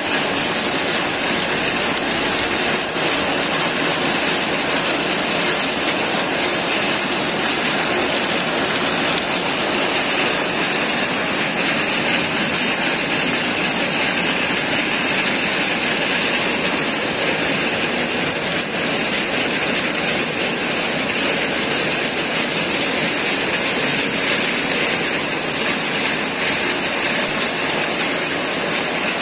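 Heavy rain pouring down steadily, a dense even hiss with no letup.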